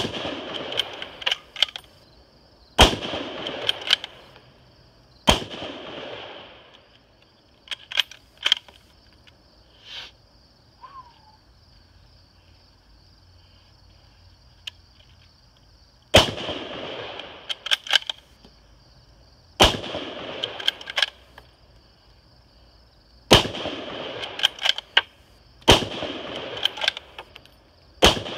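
A .308 Ruger Gunsite Scout bolt-action rifle firing eight shots. Each is a sharp crack with a trailing echo. Three come a few seconds apart, then there is a pause of about ten seconds broken only by small metallic clicks, then five more shots about three seconds apart, with the clicks of the bolt being worked between them.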